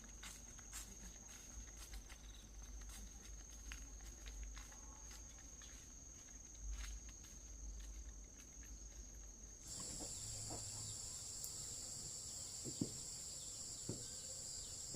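Rural outdoor ambience with a steady high insect trill and scattered light clicks; about ten seconds in it changes abruptly to a louder, denser high insect buzz.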